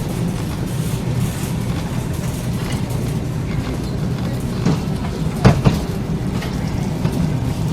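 Supermarket ambience: a steady low rumble with a few short knocks, like clattering carts or goods, about five and a half seconds in.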